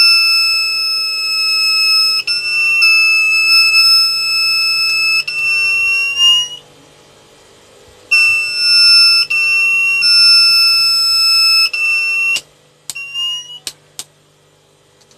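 The TBE 1200 W pure sine wave inverter's fault buzzer sounding a loud, steady, high-pitched alarm tone: it stops for about a second and a half midway, sounds again for about four seconds, then gives a few short chirps near the end. The buzzer is the inverter's fault warning, sounding as the unit loses its output.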